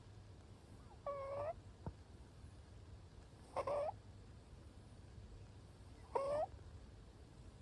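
Munchkin cat snoring in its sleep: three short, high-pitched snores, about two and a half seconds apart.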